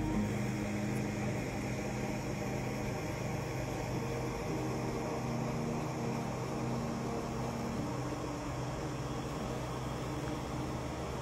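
Steady outdoor background hiss, with a faint low hum.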